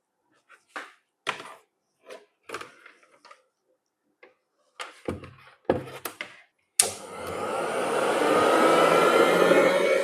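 A few handling knocks and clicks, then about seven seconds in a mixer grinder's motor switches on and runs, its whine rising as it speeds up and grows louder.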